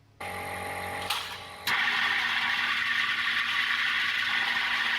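Home-built 20,000-watt microwave oven powering up with an electrical hum. About a second and a half in, a much louder steady hiss starts as aluminium foil in a beaker inside it ignites into plasma and keeps burning.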